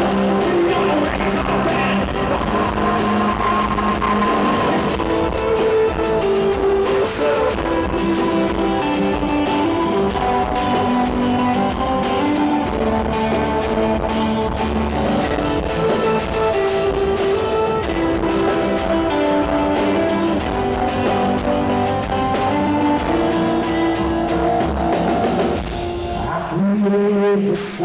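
A live acoustic rock band playing an instrumental passage, led by strummed acoustic guitars over drums. Near the end the band thins out briefly, leaving a held note.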